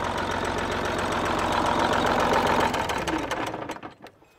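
Old semi truck's diesel engine idling steadily, then running down and stopping about three seconds in.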